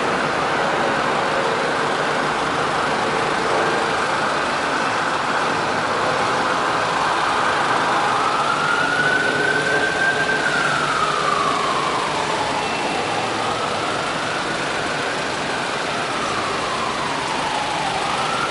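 Emergency vehicle siren wailing, rising and falling slowly in long cycles of several seconds, over steady road traffic. The wail grows plain about halfway through.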